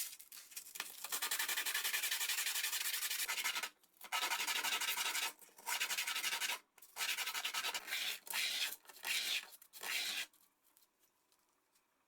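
Abrasive scrubbing on rusty metal, in about five bouts of a few seconds each with short pauses between, a dense scratchy rasp that stops a couple of seconds before the end.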